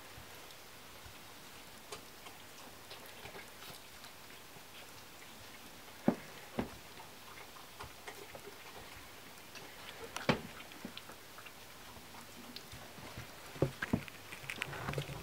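Soft, irregular clicks and rustles of two-week-old Lhasa Apso puppies crawling and scrabbling on fleece bedding, with a few sharper clicks about six, ten and fourteen seconds in. The activity gets busier near the end.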